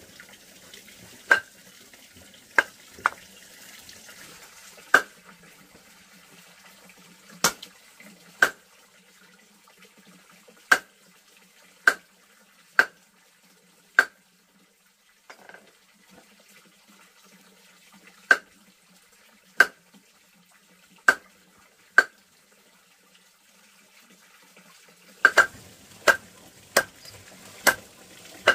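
A series of sharp knocks or clinks, irregular, about one every second or two, with a quick run of them near the end. Faint running water sounds under the first few seconds, then fades out.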